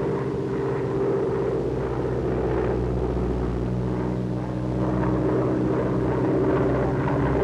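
Twin radial engines of a PBY Catalina flying boat running steadily in flight, an even propeller drone.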